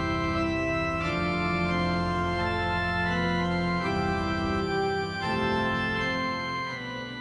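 Organ music: held chords that change a few times and fade toward the end.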